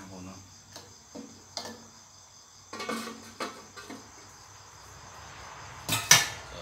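Metal spatula tapping and scraping in a metal wok of glass noodles, an aluminium lid set down over the wok, then a loud double metallic clatter about six seconds in as the spatula is put down. A steady high insect trill continues in the background.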